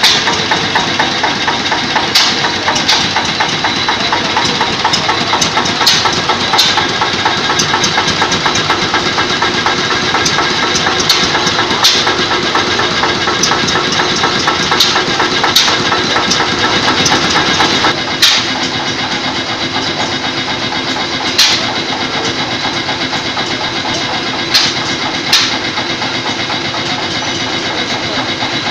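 Several vintage stationary engines running together: a steady mechanical chugging with a sharp crack from an exhaust every few seconds.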